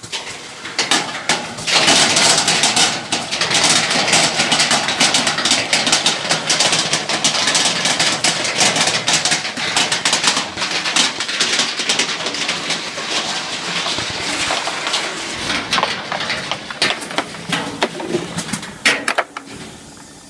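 Belt-type walnut color sorter running: a dense, continuous clatter of whole-shell walnuts knocking and rattling on the machine's steel chutes, over a steady rushing noise. The clatter starts about a second in and dies down near the end.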